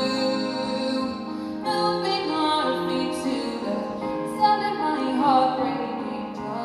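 Live solo performance: a young woman singing to her own grand piano accompaniment, with long held notes.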